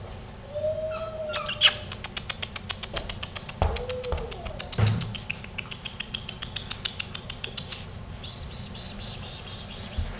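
Six-week-old puppies whining in short whimpers that rise and fall in pitch. Alongside them, a rapid, even clicking of about eight clicks a second runs for several seconds, with a thump about halfway through.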